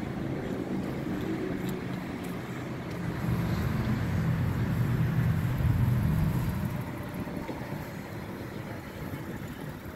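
Honda Gold Wing GL1800 motorcycle's flat-six engine running at low speed as the bike rides past, growing louder to a peak about five to six seconds in and then fading away.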